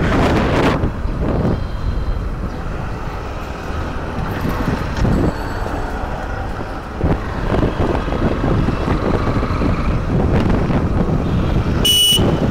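Honda X-Blade 160 single-cylinder motorcycle being ridden through city traffic, its engine and road noise mixed with wind buffeting the microphone. A short high-pitched beep sounds near the end.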